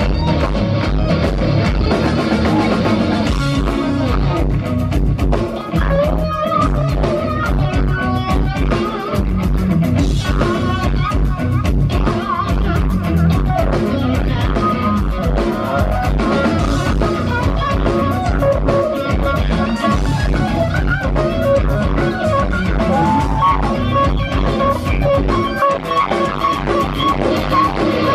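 A progressive rock band playing live at full volume: drum kit keeping a steady beat under bass, electric guitars and keyboards, with sustained lead notes held on top.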